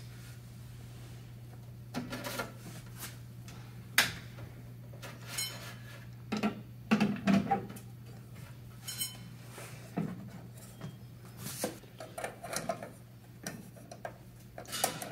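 Hands fitting a headlamp unit and its metal retaining ring into a car's headlight pod: scattered clicks, taps and rattles of metal and plastic parts, the sharpest about four seconds in and a cluster a few seconds later, over a steady low hum.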